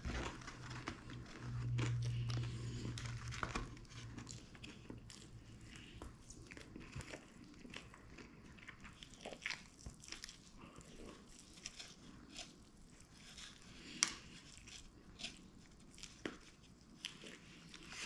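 Close-up eating sounds: biting and chewing crispy fried chicken wings, with small crunches, crackles and clicks scattered throughout. A low hum lasts about two seconds near the start.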